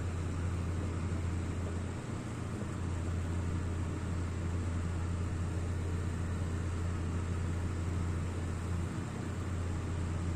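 Kerosene camping stove burner burning with a steady rushing flame noise and a low hum beneath it, which dips briefly twice.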